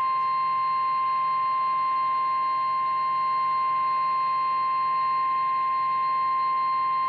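NOAA Weather Radio 1050 Hz warning alarm tone: one steady, unbroken pitch over faint radio hiss, the signal that a warning message follows.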